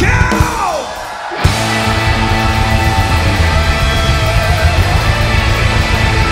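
Live rock band playing loud: electric guitar, bass and drums. About a second in it drops back briefly, then crashes back in about a second and a half in and holds a full, dense ending.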